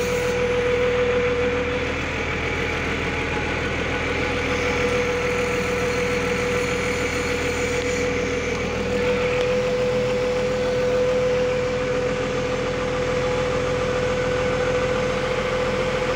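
Crane engine running steadily with a constant whine over its drone while it slowly lowers a heavy load.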